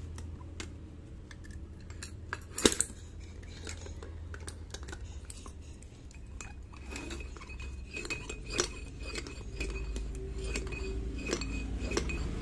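Clicks, taps and light clinks of a plastic-and-metal foot pump being handled, its pedal lifted and hose moved about, with one louder clatter between two and three seconds in.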